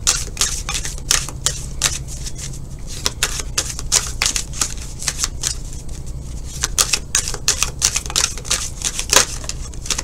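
Tarot cards being shuffled by hand: quick, irregular clicks and flicks of card against card, several a second.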